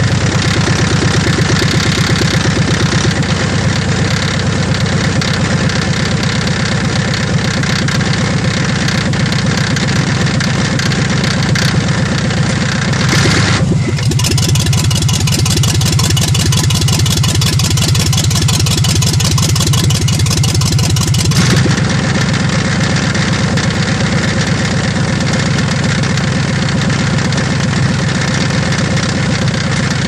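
1993 Chevrolet Z71's 5.7 L 350 V8 running, with a rapid clacking knock from a flexplate cracked all the way around its bolts. For about eight seconds midway the sound changes character.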